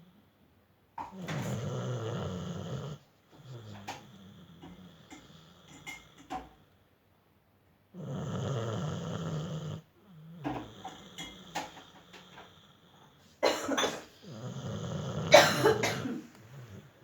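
Dog snoring heavily: three long, loud snores spaced about six to seven seconds apart, with softer breaths and snuffles between. The owner puts the heavy snoring down to a large dose of vaccine.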